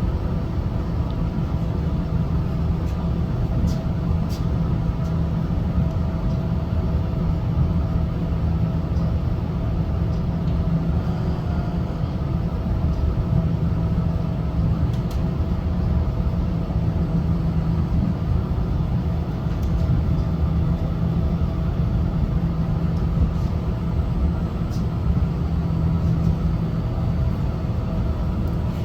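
Steady low hum and rumble inside a Ferris wheel cabin during the ride, with a few faint constant tones above it.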